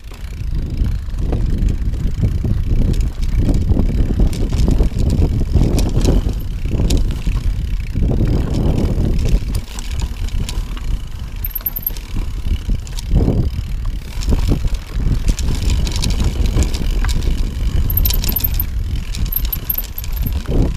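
Mountain bike ridden over a stony trail: a steady low rumble with frequent rattles and knocks as the wheels run over rocks, and a few faint high squeals near the end.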